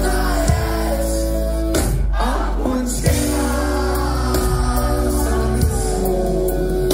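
Live pop-rock band playing a song with a sung lead vocal: held chords under the voice, punctuated by a few drum hits.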